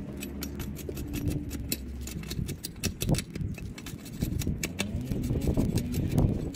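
A bladed hand tool working a wooden branch: a run of irregular sharp clicks and scrapes over a low background rumble.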